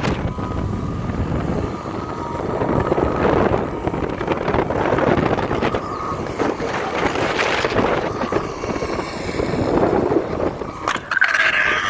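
Wind rushing over a phone microphone during a fast zip-line ride, with the trolley running along the steel cable and a faint steady whine under the wind.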